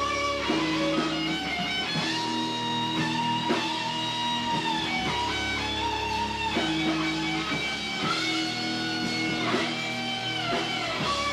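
A rock band playing live, led by electric guitar chords with bass underneath, with the chords changing every second or so. It is a rough live basement recording.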